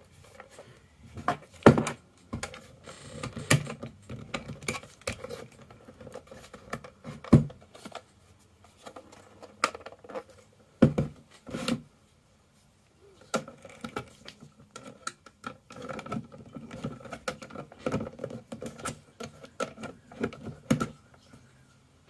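Screwdriver prying at the plastic latches of a desktop optical drive's sheet-metal case, with the drive handled on a tabletop: irregular sharp clicks and knocks, with short lulls between bursts.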